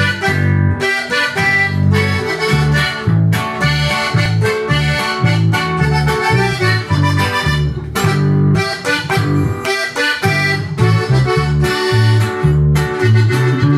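Button accordion playing a lively melody over a steady, evenly repeating bass pattern.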